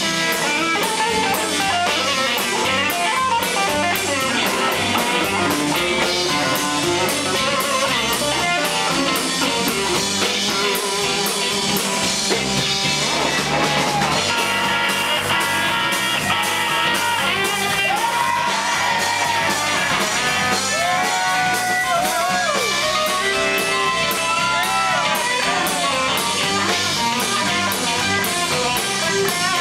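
Live blues-rock band playing, led by an electric archtop guitar soloing over bass and drums.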